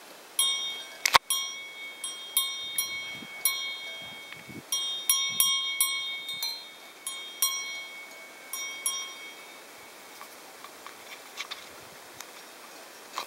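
A cowbell on a calf's neck clanking in irregular strikes as the calf moves while grooming another calf, with one sharp knock about a second in. The clanking stops about two-thirds of the way through.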